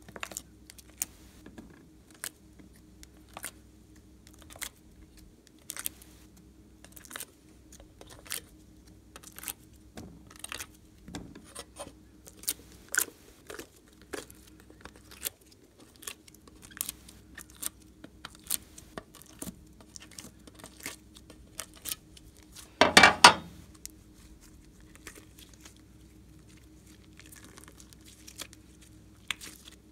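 Glossy slime being stretched and squeezed by hand, giving off irregular sharp little clicks and pops. One louder, longer squelch comes about three quarters of the way through.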